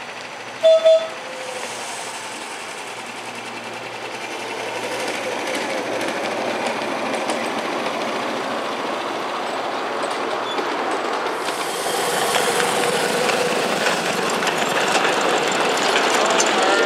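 Ridable miniature railway train rolling along the track, its wheels clattering steadily over the rail joints and growing louder toward the end. About a second in, two short, loud horn toots.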